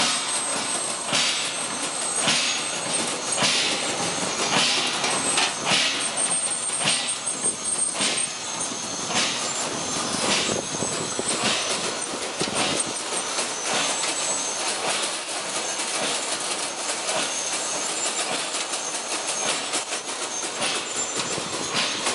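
A PB-3600-SA auto breader (crumb-coating machine for fine crumbs) running: a steady mechanical clatter with a knock about once a second and a thin high squeal.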